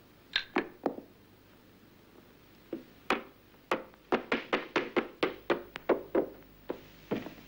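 Nunchaku clacking in a fight: sharp wooden knocks, three in quick succession, a short pause, then a fast run of about three to four clacks a second.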